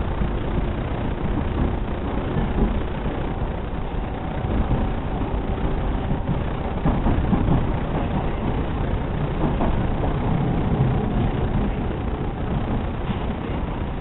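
Steady running noise of a JR 209 series electric train heard from inside the passenger car: a low rumble of wheels on rail with a few faint steady tones over it.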